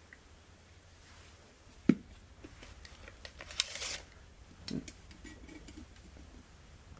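A folding stainless steel BBQ multitool being handled: a sharp metal click about two seconds in, a brief scraping rustle around three and a half seconds, and another knock near five seconds, with small ticks between.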